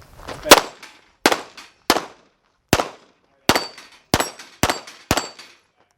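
Pistol shots fired in a competition stage: eight sharp reports in about five seconds at uneven spacing, the first the loudest. Several are followed by a short metallic ring.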